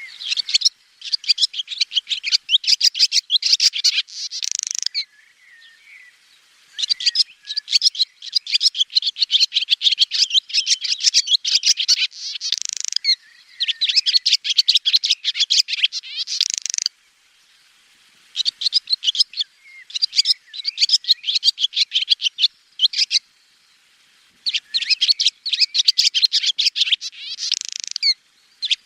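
Swallow twittering in bouts of a few seconds, each a rapid run of high chirps, with short pauses between bouts.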